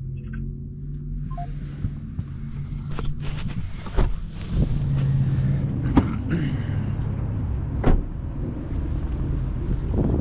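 A car running with a steady low hum, with a few sharp knocks or clicks about 4, 6 and 8 seconds in.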